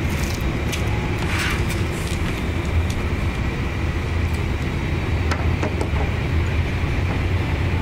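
Steady low rumble of outdoor vehicle noise, with a few faint scattered clicks.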